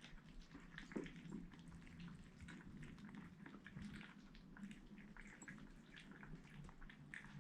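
Kittens eating wet food from a dish: faint, irregular wet smacking and licking clicks.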